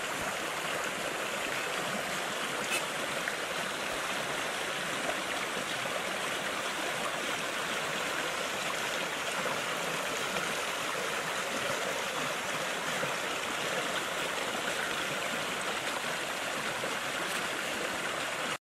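Shallow woodland creek flowing: a steady, even rush of running water.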